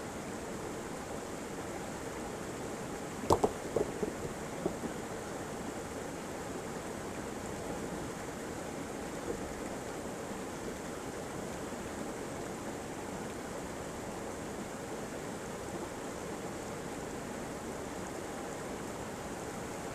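Steady rush of a waterfall. About three to five seconds in there is a short cluster of sharp knocks.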